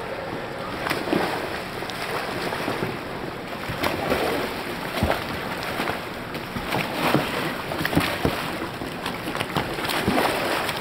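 Pool water splashing and sloshing around a whitewater kayak as it rolls and flips, with many short sharp splashes over a steady churning of water.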